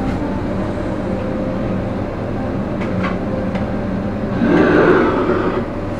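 A steady mechanical rumble with a few faint clicks, swelling louder for about half a second about four and a half seconds in.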